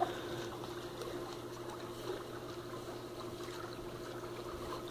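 Soft water lapping and trickling as a small dog paddles across a swimming pool, over a steady low hum.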